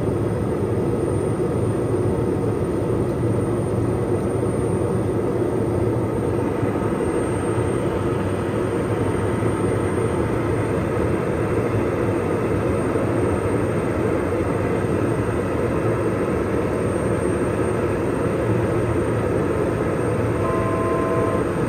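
Steady cabin noise of a Pilatus PC-12 NGX in flight, from its single Pratt & Whitney PT6A-67P turboprop engine, propeller and airflow, heard from the cockpit. A short two-note electronic tone sounds near the end.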